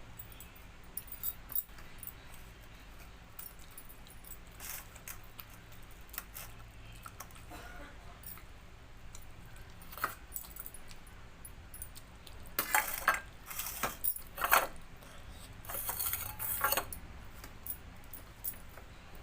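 Dishes and cutlery clinking and scraping during a meal of rice and dal. Scattered light clicks, then two louder bursts of clattering, about thirteen and sixteen seconds in.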